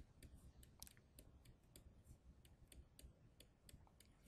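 Faint, irregular clicks of a stylus tip tapping on a tablet screen while an equation is handwritten, over near silence.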